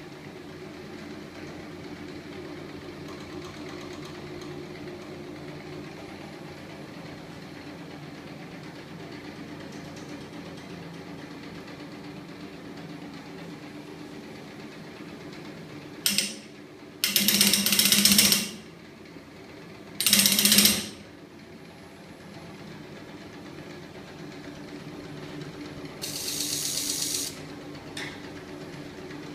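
Homemade magnet-motor rig driven by a small 24 V electric motor from a 12 V battery, running with a steady hum of several low tones. Over the middle come three loud, harsh, noisy bursts, the longest about a second, followed later by a quieter rapid rattling burst and a single click.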